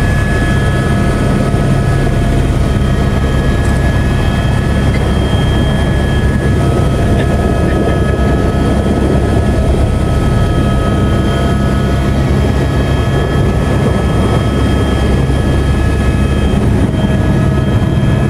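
Helicopter engine and rotor noise heard from inside the cabin: a loud, steady drone with a thin, steady high whine over it.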